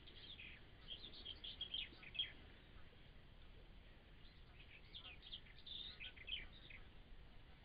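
Faint high chirps of small songbirds singing: one spell of quick notes in the first two seconds and another from about five seconds in.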